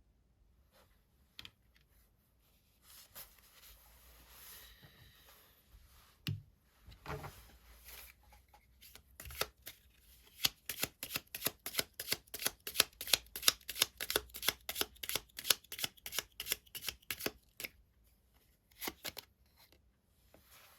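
Tarot cards being shuffled by hand. Soft sliding and rustling of the deck comes first, then a long run of quick, even card slaps, about four or five a second, and a couple of last taps near the end.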